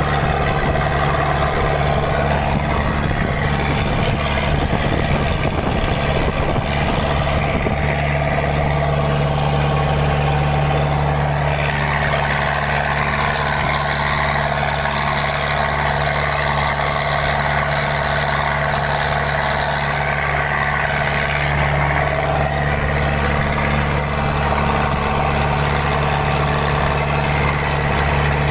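Mitsubishi 4D31 four-cylinder diesel engine, a car engine fitted in a boat, running steadily. A higher-pitched layer strengthens for several seconds in the middle.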